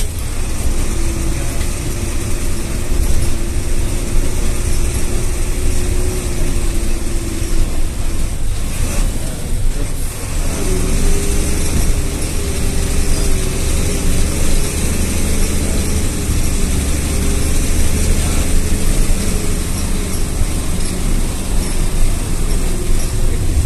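Bus engine running and road noise, heard from inside the bus cabin while it drives. The engine's note breaks off about eight seconds in and comes back slightly higher about two seconds later.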